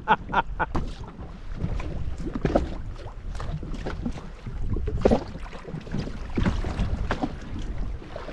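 A man laughing for about the first second, then small waves lapping and slapping against the hull of a drifting jet ski, with wind on the microphone.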